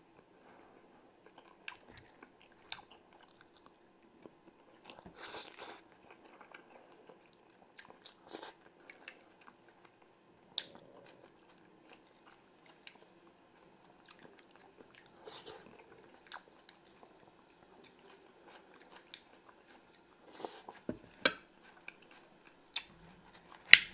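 Close-miked chewing and biting of a man eating fried potatoes and a tomato-and-onion salad, with a few sharp clicks of a fork against the dishes.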